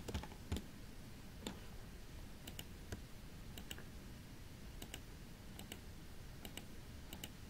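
Faint, irregular clicking of a computer mouse and keyboard: about a dozen short, separate clicks spread across the stretch.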